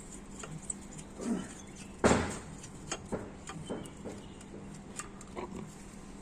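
Scattered metal clinks and knocks of bolts and turbocharger parts being handled while the turbo is fitted, with one louder clatter about two seconds in.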